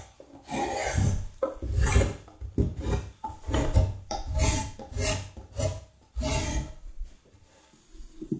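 Repeated scraping strokes of a hand tool along the edge of a wooden Windsor chair seat blank, about two a second, stopping about seven seconds in.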